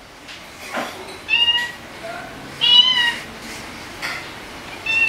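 Domestic cat meowing: two drawn-out meows about a second apart, then a short one near the end.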